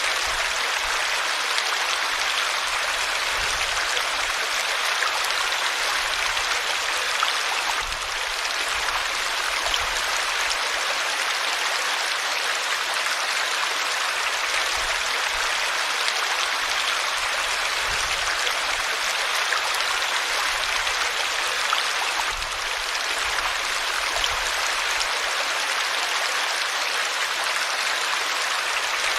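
River water flowing over rocks in a steady rush, like white noise, with no pauses or changes.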